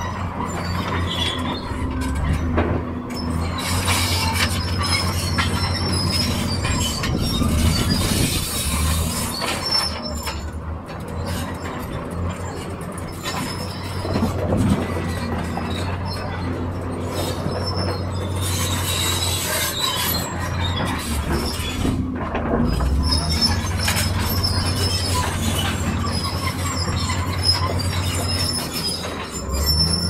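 Bulldozer at work: its diesel engine runs with a steady low drone while the steel crawler tracks squeal and clank continuously.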